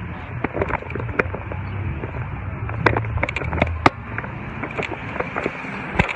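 Handling noise on a handheld phone's microphone: scattered sharp clicks and knocks, the loudest about three and four seconds in and again near the end, over a steady low rumble of outdoor street noise.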